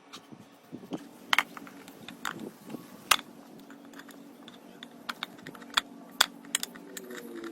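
Irregular light clicks and taps, a dozen or so scattered unevenly, over a faint steady hum.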